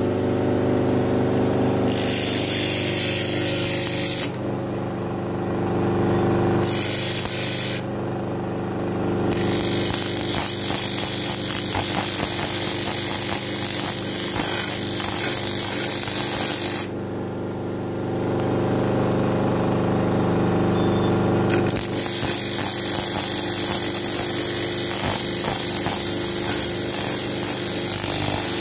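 Motor-driven sewing machine running: a steady motor hum underneath, with a harsh rattling layer of fast stitching that starts and stops four times.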